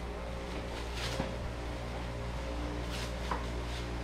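Faint crinkling of thin plastic wrap as toy pieces are unwrapped by hand, a few soft rustles about a second in and again near the end, over a steady low hum.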